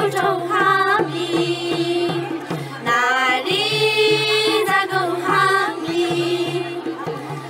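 Young girls singing a Nepali song together into microphones, in long held notes, over a steady low beat.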